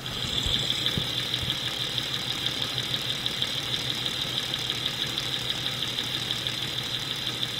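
Jeep 4.0L inline-six idling, heard through a Steelman Chassis Ear clamped to the valve cover stud: a fast, even ticking clatter. It sounds like either light valve clatter or a combustion knock (ping or detonation), possibly injector noise carried through the head.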